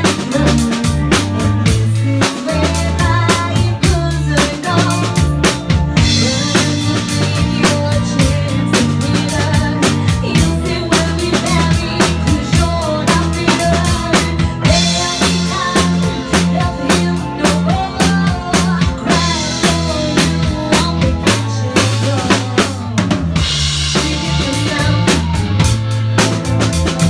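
A live band playing: a drum kit keeps a steady beat of kick, snare and cymbals under guitar and a low bass line.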